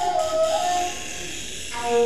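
Shakuhachi playing a slow folk-song phrase of long notes that bend in pitch; the phrase dies away about halfway through and a new note comes in near the end.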